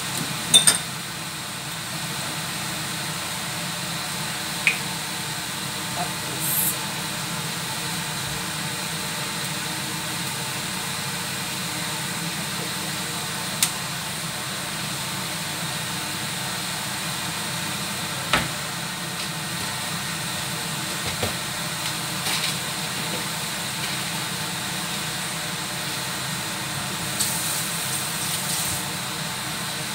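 A wok of pork and chicken feet cooking in soy sauce: a steady hiss with a few sharp pops.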